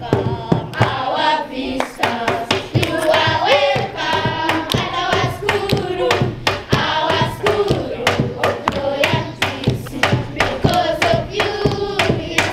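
A group of schoolchildren singing together, with steady hand claps keeping time.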